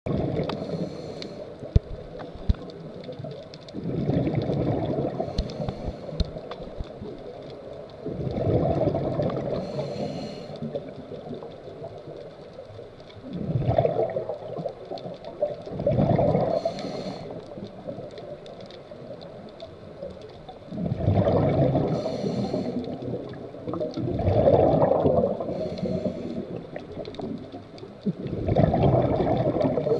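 Scuba diver breathing through a regulator underwater: a hiss on each inhale, then a burst of gurgling exhaust bubbles on each exhale, about every four to five seconds. A few sharp clicks come in the first few seconds.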